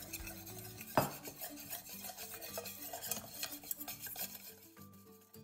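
Wire whisk stirring and scraping against a stainless steel saucepan as carrot juice is whisked into agar powder, with one sharp clink about a second in. The whisking grows sparse near the end.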